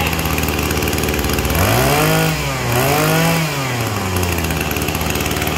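Maruyama 23cc brush cutter engine idling, revved up twice in quick succession about a second and a half in, each rev rising and falling back to idle. It runs like a new engine.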